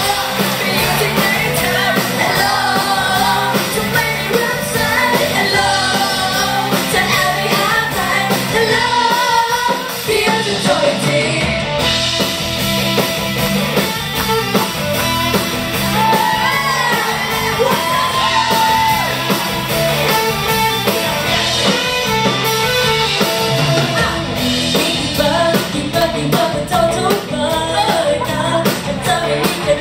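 Women singing a Thai pop song live into handheld microphones over amplified music.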